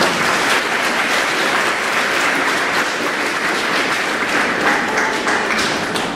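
Audience applauding, starting suddenly and dying down near the end.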